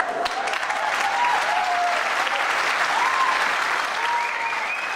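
Audience applauding loudly and steadily, with voices cheering over the clapping.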